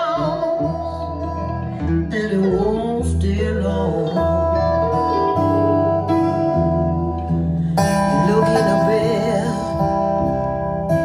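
Recorded music with guitar, a steady bass line and a singing voice, played back through Klipsch La Scala AL5 horn-loaded loudspeakers and picked up by a microphone in the listening room.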